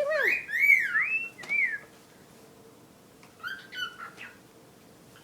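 Cockatiel whistling a short tune of gliding notes that rise and fall, then a few softer chirps about three and a half seconds in.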